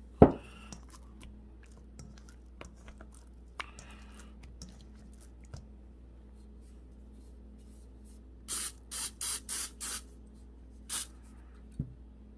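A sharp click just after the start. A little over halfway through, an olive oil cooking spray gives about five short sprays in quick succession onto raw chicken breasts, then one more near the end.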